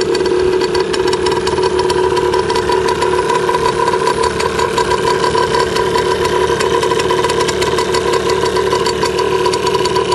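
Enduro motorcycle engine running loud and steady at one speed, with a rapid ticking note and no revving.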